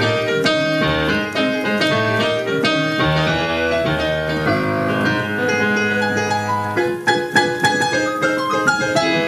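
Piano being played: a flowing passage of chords and melody, the notes coming quicker and more accented from about seven seconds in.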